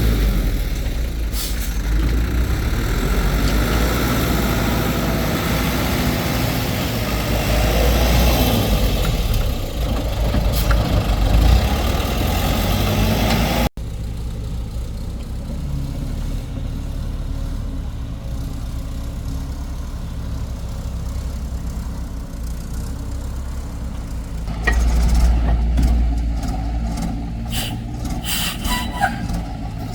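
Heavy machine's engine running steadily, with an abrupt cut about halfway to a quieter engine sound. Near the end it gets louder, with a scatter of sharp knocks and clatter.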